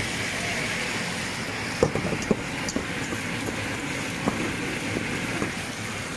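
Steady sizzling from a pan of sautéing onion, garlic and tomato, with a few light clicks and knocks scattered through it.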